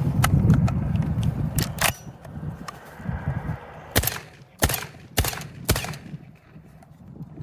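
A shot from a 12-gauge semi-automatic shotgun right at the start, its boom rolling off over the next second or so, followed later by four sharp clicks about half a second apart. The action is short-stroking, failing to cycle the next shell fully, which the shooters put down to shells too light for it.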